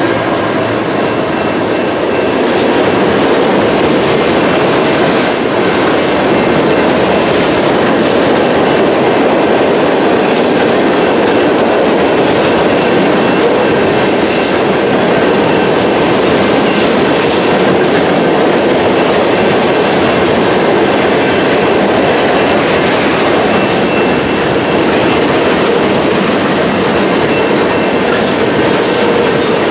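A train rolling past, loud and steady: the rumble of wheels on rail, with scattered clicks as the wheels cross the rail joints.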